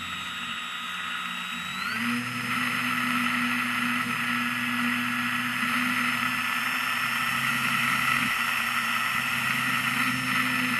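Onboard sound of a radio-controlled model airplane in flight: its motor and spinning propeller make a steady whine over rushing air. About two seconds in, the pitch steps up and the sound gets louder as the motor speeds up, then holds steady.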